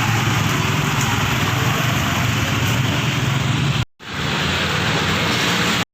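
Road traffic noise: vehicle engines running with a steady low hum under a dense rushing noise. The sound cuts out abruptly for a split second about four seconds in.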